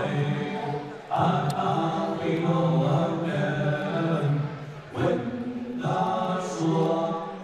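Fighter walk-out music: chanted, choir-like singing in long repeated phrases, a new phrase starting about a second in and again about five seconds in.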